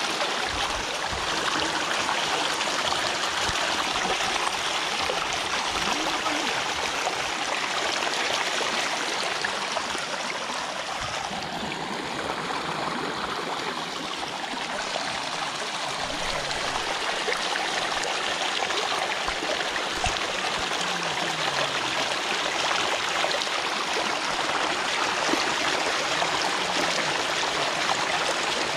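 Fast water rushing and splashing down a narrow field channel onto a mesh net fish trap, a steady gushing flow.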